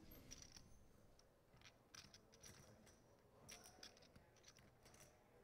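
Faint, scattered clicking of poker chips being handled at the table, in near silence.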